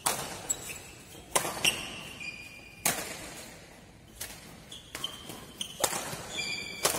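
Badminton doubles rally: rackets striking a shuttlecock with sharp cracks about once a second, echoing in a large hall. Sneakers squeak on the court floor between shots.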